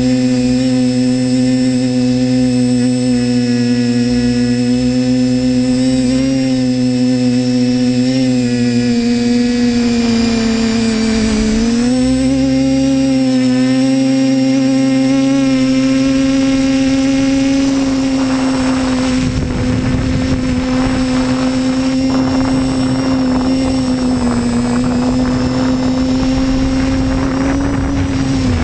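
Drone's electric motors and propellers whining steadily, heard close up from the onboard camera, the pitch dipping briefly about eleven seconds in. From about eighteen seconds, wind buffets the microphone over the whine.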